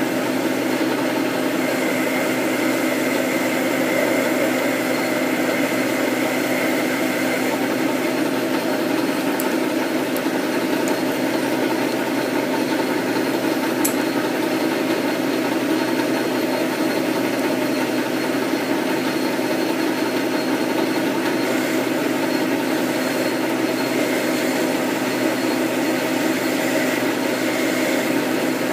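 South Bend lathe running under power, turning down an arbor steadied in the steady rest with a carbide insert tool on a feed pass: a steady hum of the motor and gearing with the cut, and a few faint ticks near the middle.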